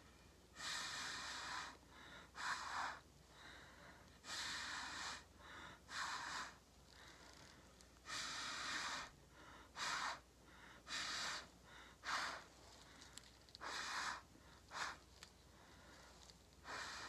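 Breath blown in short puffs through a drinking straw onto wet acrylic paint, pushing it out across a tile: about a dozen breathy hisses, each lasting under a second, with brief pauses between them.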